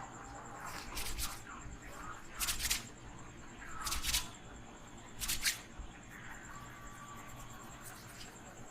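Rubbing strokes of a head massage through a person's hair: four short rustling bursts about a second and a half apart, then quieter rubbing.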